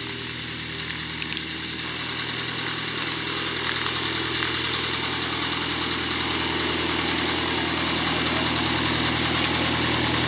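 Cessna 172's piston engine and propeller running at low, steady taxi power, growing gradually louder as the plane taxis closer.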